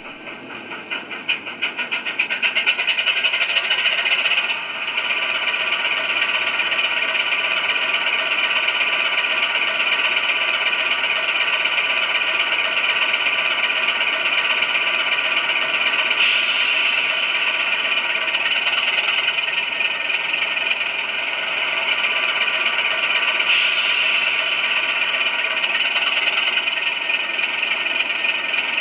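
Sound-fitted OO gauge model diesel locomotive playing its recorded diesel engine ticking over steadily through its small onboard speaker, building up over the first few seconds. Two short hisses come in the second half.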